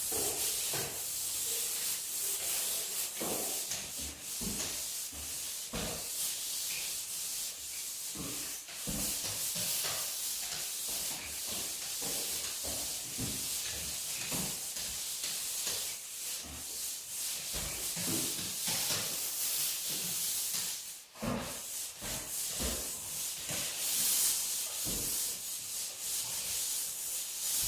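Sanding dried drywall joint compound after the final coat: abrasive rubbing in quick, irregular back-and-forth strokes over a steady high hiss, with a short break about 21 seconds in.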